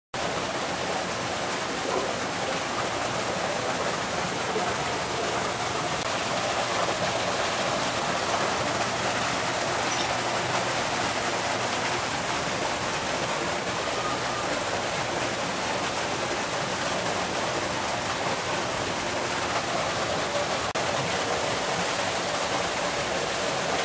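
A steady, even rushing noise with no rhythm or clear pitch.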